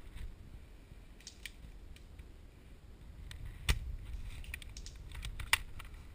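A string of sharp clicks and snaps over a low rumble of handling or wind noise, with two loud cracks about two seconds apart in the second half.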